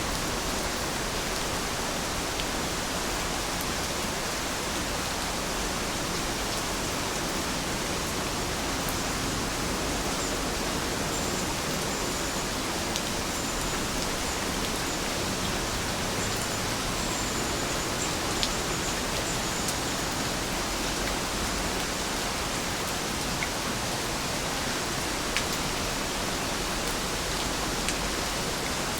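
Steady rain falling, an even hiss with a few sharper single drop ticks scattered through it.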